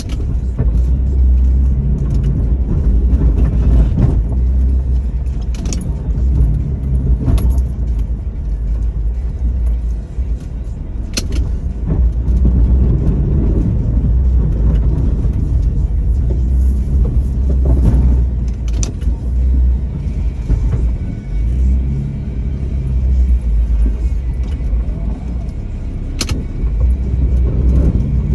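2002 Jeep Liberty's engine running while plowing snow, a steady low rumble that swells and dips, with sharp knocks and rattles every few seconds.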